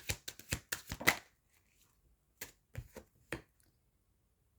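Tarot cards being shuffled by hand, a quick run of sharp card snaps, followed by a few single snaps as cards are handled.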